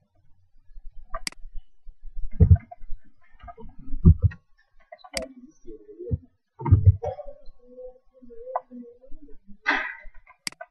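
Scattered clicks and taps of typing on a laptop keyboard and clicking a mouse, irregular and uneven, with a few dull low thumps among them.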